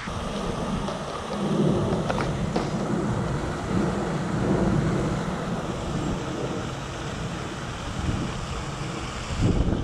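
Wind buffeting the camera's microphone: a steady low rumble with hiss over it.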